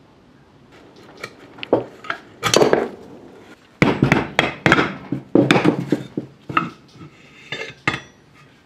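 Metal parts clinking, knocking and scraping as the crankshaft of a Briggs & Stratton 3 HP engine is worked out of its crankcase: an irregular run of sharp clatters, loudest in the middle.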